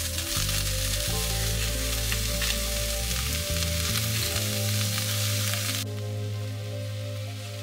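Cabbage and carrot sizzling as they stir-fry in a stainless steel pan, a steady hiss that drops away about six seconds in.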